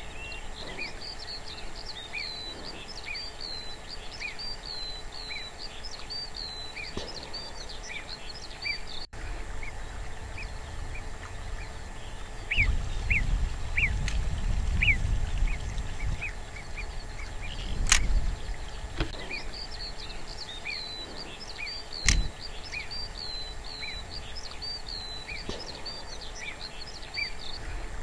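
Small birds chirping and calling over and over in short curved notes. A gust of wind hits the microphone for a few seconds around the middle, and two sharp clicks come a few seconds apart in the second half.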